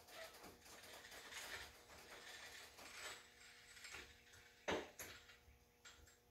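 Faint mechanical rattling and creaking from a red ATV lift jack being worked by hand, with two sharper clicks about two-thirds of the way in.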